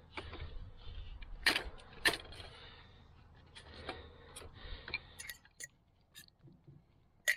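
Scattered light clicks and taps against a quiet background: two stronger taps about a second and a half and two seconds in, a cluster of small clicks a little past the middle, and a sharp click at the very end.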